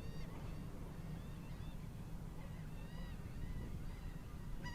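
Birds calling: a few short, arched, fairly high calls over a steady low rumble.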